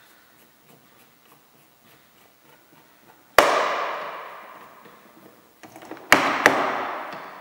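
Faint clicks of a Torx screwdriver turning the door handle's retaining screw in the edge of a VW Golf Mk5 door. Then three sharp knocks ring out, one about halfway and two close together near the end, as the handle's lock-cylinder cap is pressed and knocked into place.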